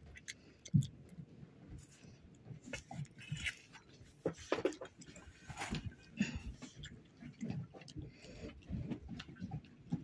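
Raccoon chewing a date: soft, irregular smacking and small crunching clicks.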